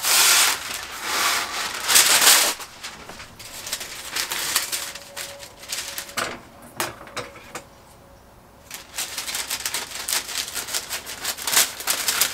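Sheet of parchment paper rustling and crinkling as it is pulled from its box and handled. It gives three loud rasping strokes in the first two seconds or so, then irregular crinkling, and it goes quieter for a moment before rustling again near the end.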